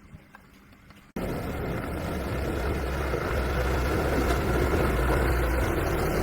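Honda 110cc motorcycle's single-cylinder four-stroke engine running steadily, cutting in suddenly about a second in.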